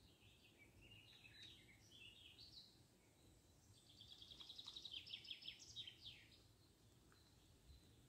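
Faint songbird singing over a low, steady background hum: scattered short high chirps, then about four seconds in a rapid run of repeated high notes ending in a few quick falling notes, lasting about two seconds.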